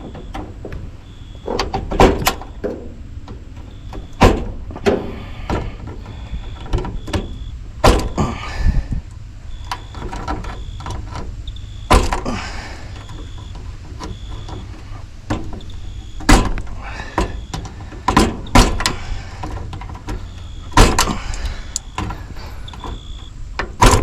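Irregular sharp clicks, snaps and knocks of hands and tools working in a heat pump outdoor unit's sheet-metal control box, pulling wires and connectors off the defrost control board. A steady low rumble runs underneath.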